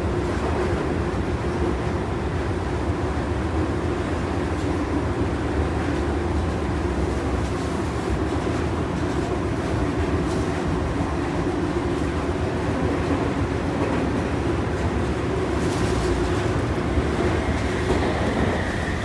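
Tokyu 3000 series commuter train running, heard from inside the passenger car: a steady rumble of wheels and motors on the rails. Near the end a thin, high whine comes in and falls slightly in pitch. This is the inverter's 'keen' noise, which the uploader takes as the sign that this set's VVVF software has not been updated.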